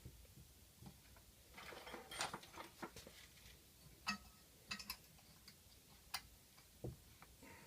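Faint, scattered clicks and light knocks, as of small tools or parts being handled. The sharpest taps come about four seconds and about six seconds in.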